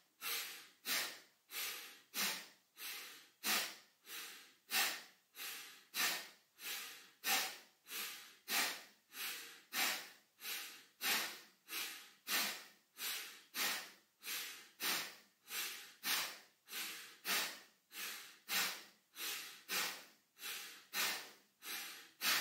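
A man breathing rapidly and forcefully through the nose in a dynamic-breathing exercise: sharp inhales and exhales alternating in an even rhythm, nearly two strokes a second, then stopping near the end.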